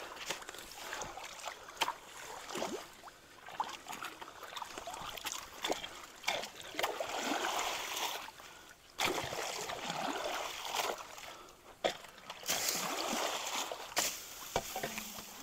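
Creek water splashing and sloshing as people wade and drag logs and brush with long-handled hoes, with irregular sharp splashes and knocks.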